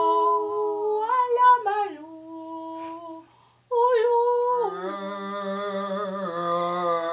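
A woman singing long held notes without words, breaking off about three seconds in; after a short pause she sings on, and a lower held tone joins beneath her voice about a second later.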